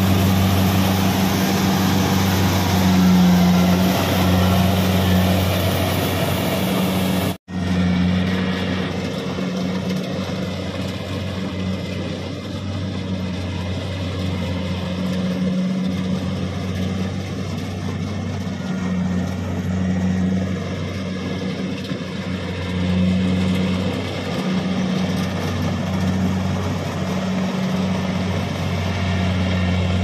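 Kubota DC-70 rice combine harvester's diesel engine running steadily, a constant low drone. About seven seconds in, the sound cuts out for an instant and comes back duller and more distant as the combine harvests the field.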